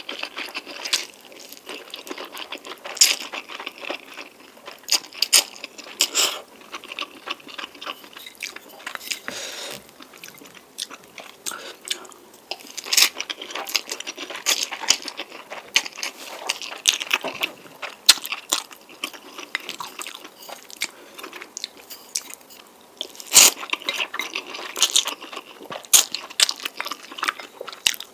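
Close-miked eating of spicy noodles: chewing with many sharp, crunchy bites at irregular intervals.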